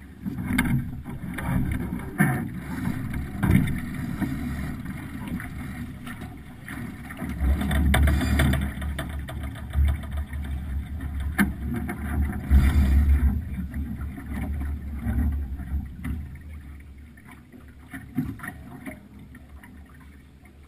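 Sailing yacht under way: water washing along the hull and wind rumbling on the microphone, with a few short knocks. The rumble is heaviest about seven and twelve seconds in.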